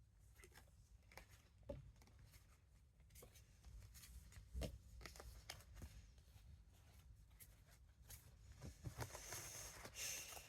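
Near silence: room tone with a few faint scattered clicks and taps, and a faint rustle near the end.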